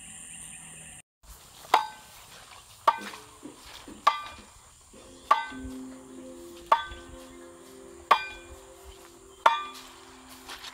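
A heavy wooden log is lifted and dropped onto the top of a wooden fence post, driving it into the ground. There are about seven strikes, roughly one every second and a quarter, each a sharp knock with a short ringing after it.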